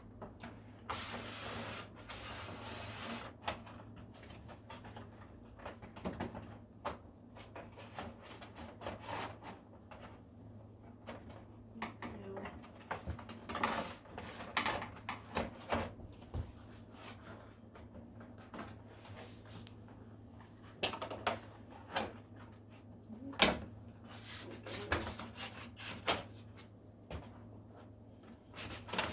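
Screws being undone from a TV's plastic back casing and the casing being handled: irregular clicks, scrapes and knocks, the sharpest knock about two thirds of the way through.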